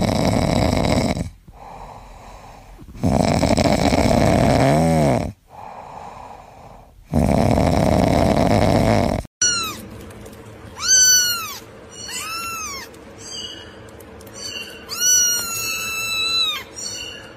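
A sleeping ginger cat snoring in long, loud breaths about every four seconds. After a sudden cut, a kitten meows repeatedly in short, high-pitched meows that rise and fall.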